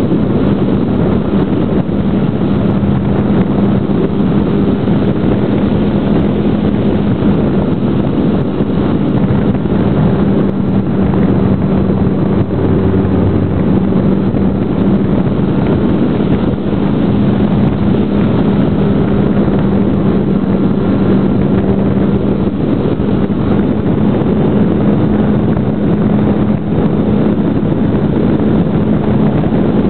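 Brushless electric motor and propeller of a GWS Slow Stick RC plane running steadily in flight, heard from on board: a constant drone with a steady hum, mixed with wind rushing over the microphone.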